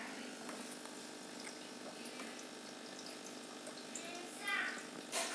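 Aquarium pump running with a steady hum and trickling water, with a few faint ticks and a sharp knock near the end.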